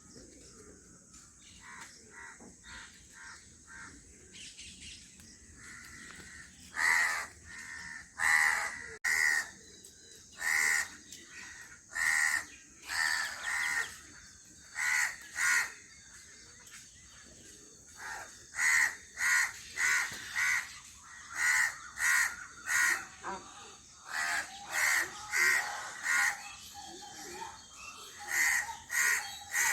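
A crow cawing over and over: harsh, short calls, some single and many in quick runs of two or three. Fainter bird chirps come in the first few seconds, before the cawing starts.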